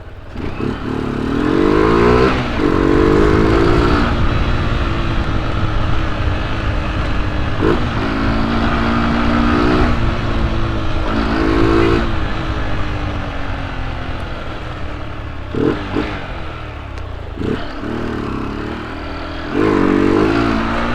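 Single-cylinder Honda CG 125 engine pulling on the road with its air-intake hose removed, which makes it run loud. Its pitch climbs, holds and drops again several times.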